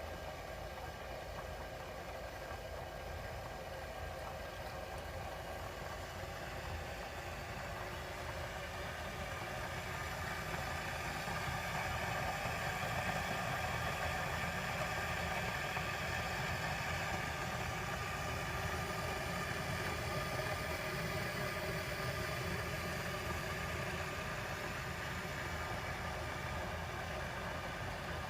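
Electric gooseneck kettle heating water: a steady rumble and hiss from the stainless steel pot that builds and grows louder about a third of the way in, as the water nears the boil.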